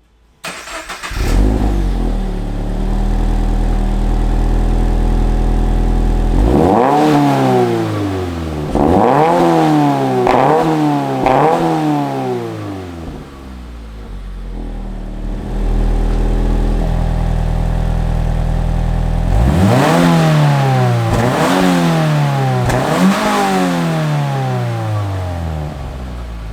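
2019 Subaru BRZ's flat-four engine idling through its exhaust, then revved in two sets of about four quick blips. Each blip rises sharply in pitch and falls back to idle, with steady idle between the sets.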